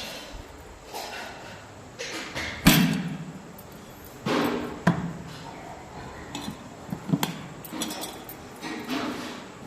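Several separate sharp knocks and clinks of hard objects, irregularly spaced, the loudest about three seconds in.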